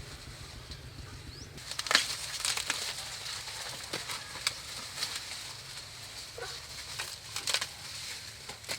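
Foliage rustling with repeated sharp snaps and cracks of twigs, beginning about a second and a half in and going on irregularly.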